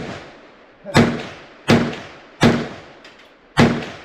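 Kel-Tec PMR-30 pistol firing .22 Magnum rounds that had spent five years stored in a car trunk, all going off normally. There are four loud shots at uneven spacing, roughly a second apart, each a sharp crack with a short ringing, echoing tail.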